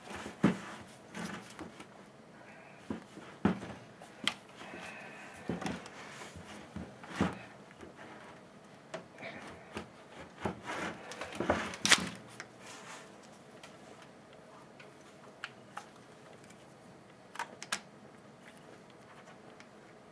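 Parts of a Stihl HS80 hedge trimmer being handled and fitted by hand: irregular clicks, knocks and rubbing of plastic and metal, the loudest knock about twelve seconds in, then a quieter stretch and two sharp clicks near the end.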